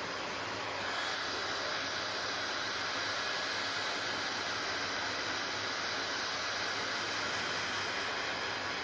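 Hair dryer blowing steadily, a constant rushing hiss of fan and air; about a second in it becomes slightly louder and brighter, then holds steady.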